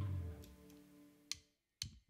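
The band's last chord, electric guitars and bass, ringing out and fading away within about half a second, then near silence with two faint sharp clicks about half a second apart, a drumstick count-in for the next song.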